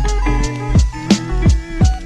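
Background music with a steady drum beat, bass and guitar.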